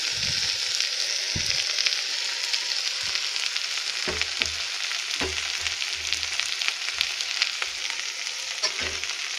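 Diced brinjal sizzling in oil in an aluminium pressure cooker, a steady sizzle, while a metal slotted spoon stirs the ground spice powder in, scraping and knocking against the pot every second or so.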